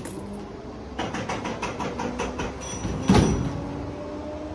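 Token vending machine dispensing a book: a click as the token goes into the coin mechanism, then a mechanism ticking about five times a second for some two seconds, then a heavy thud with a short rattle as the book drops into the delivery tray, followed by a faint steady motor hum.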